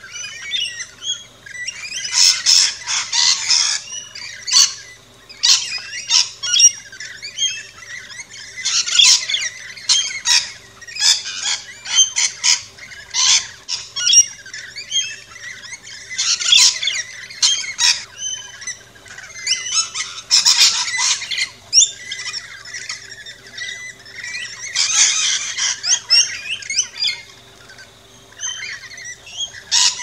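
A flock of rainbow lorikeets squawking and chirping: harsh, high screeches in dense bursts every few seconds, with shorter calls in between.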